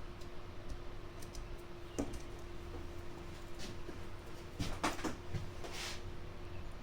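Faint handling sounds: a light click about two seconds in and a few short rustles and knocks later, over a faint steady hum.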